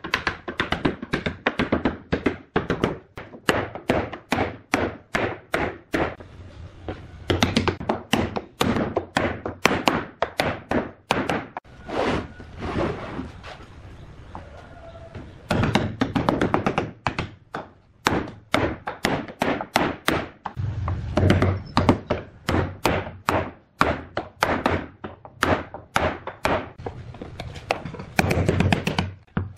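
Claw hammer tapping red hardwood inlay pieces down into glued recesses in a pine tabletop, at times through a scrap wood block: quick runs of sharp wooden knocks, with a short quieter pause just before the middle.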